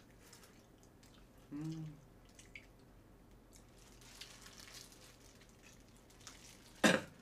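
Faint wet, sticky eating sounds of chewing and handling jokbal (braised pig's trotters), with small clicks. A short hummed "mm" comes about a second and a half in, and a loud cough near the end.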